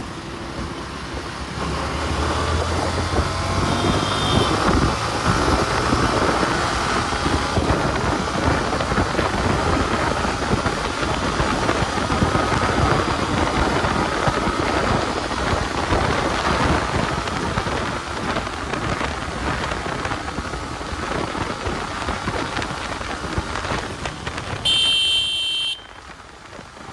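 Loud, steady rushing noise picked up by a GoPro's microphone, the kind of noise problem the camera is known for. A short high beep comes about a second before the end, and the rushing then drops away quieter.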